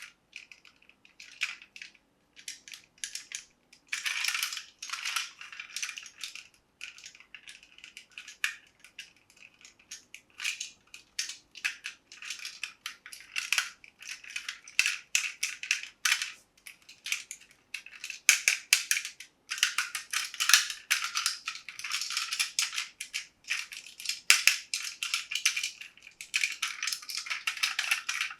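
Irregular crinkling and clicking of hard plastic being handled, in busy clusters that get denser about a third of the way in and again in the last third.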